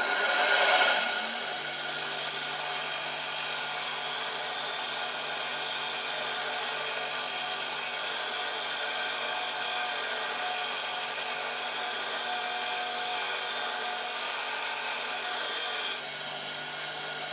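Bench grinder running steadily with a woodturning scraper held against the wheel, grinding the steel to a fresh edge. The loudest part comes in the first second, and the sound drops slightly near the end.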